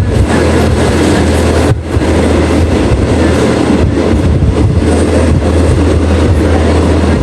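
Moving passenger train heard from aboard a carriage: a loud, steady rumble and running noise with a low hum, with a brief dip about two seconds in.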